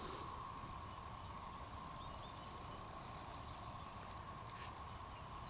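Faint, steady distant hum: a low rumble with a thin, even high tone over it, which the uploader likens to a small factory running with its shipping doors open. A few faint bird chirps come through about a second or two in.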